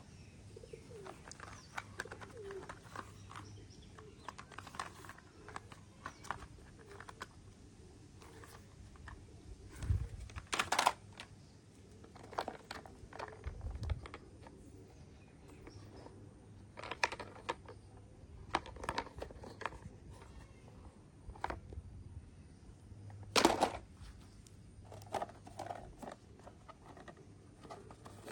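Hard plastic toy vehicles being handled: scattered clicks and clacks as they are picked up, turned over and knocked together, with two louder clacks, one about eleven seconds in and one about twenty-three seconds in.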